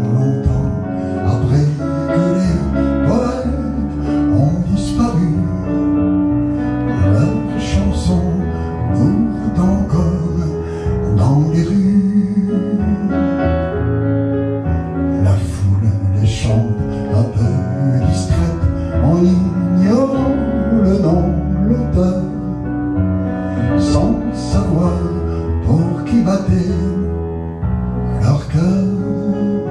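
A man singing a French chanson into a microphone, accompanied by piano.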